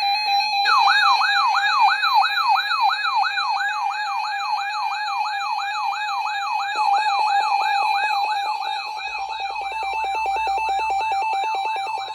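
Weather alert radio sounding its alarm for a severe thunderstorm watch: a siren-like whoop falling in pitch, repeating about three times a second over a steady high tone. It opens with a brief screech of data tones.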